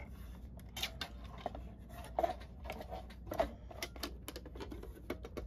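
Irregular light clicks and taps of plastic as the roof of a plastic G scale caboose is handled and pressed down onto its body to make the lighting contacts meet.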